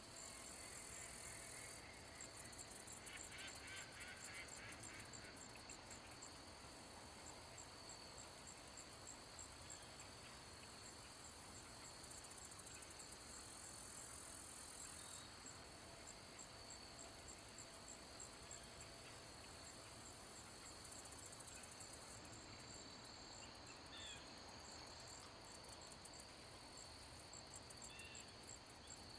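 Faint, steady chorus of crickets and other insects trilling, with a continuous high tone and rapid pulsed buzzing above it.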